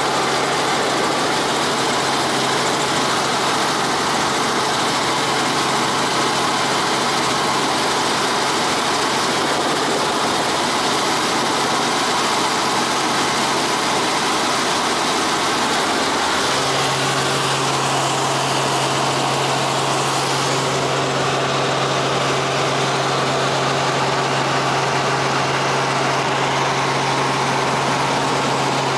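Cabin noise of a light helicopter in cruise flight: a steady engine and rotor drone with a constant low hum. A little past halfway the hum steps slightly higher and stronger.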